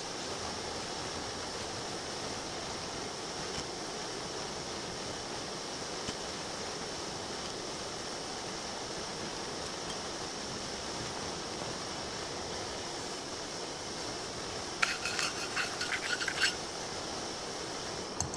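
Primus Express Spider II remote-canister stove burning with a steady hiss, its canister inverted to feed liquid gas. About fifteen seconds in comes a short run of light clicks and clinks.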